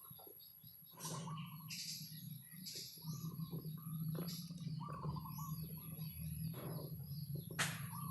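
Songbirds chirping and twittering in many short, overlapping calls, over a steady low hum. Two sharp clicks stand out, one about a second in and a louder one near the end.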